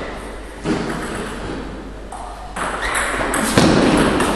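A table tennis ball clicking off the bats and the table as a point is served and played, louder in the second half as the rally gets going.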